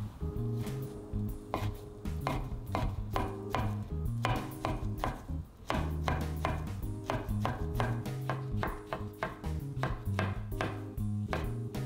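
Kitchen knife cutting a rolled egg crepe into thin strips on a wooden cutting board: a steady run of knife knocks on the board, about three a second.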